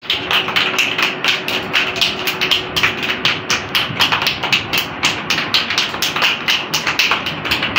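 A group of young children clapping their hands, a fast, uneven patter of many claps.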